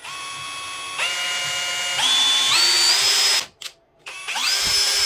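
Dongcheng 05-13 cordless impact drill running free after its gearbox repair: the motor whine steps up in pitch several times as the trigger is squeezed further, stops about three and a half seconds in, then starts again and quickly rises to full speed. It runs cleanly with no abnormal noise.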